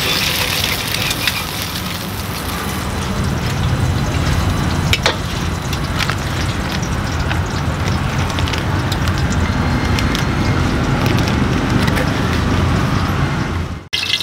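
Stir-frying in a wok over a gas burner: a steady burner rumble and sizzle with a few sharp clinks of metal against the pan, briefly cut off near the end.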